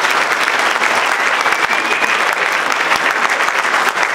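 A roomful of people applauding steadily: dense, even clapping.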